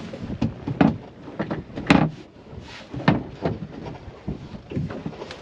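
Repeated knocks and clunks of a boat's removable table top being handled and seated onto its pedestal support. There are several sharp knocks of uneven strength, the loudest about two seconds in.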